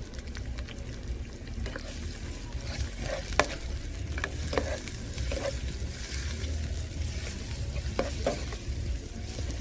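Onions and crushed garlic sizzling in hot oil in a nonstick pan, stirred with a utensil that scrapes and clicks against the pan a few times.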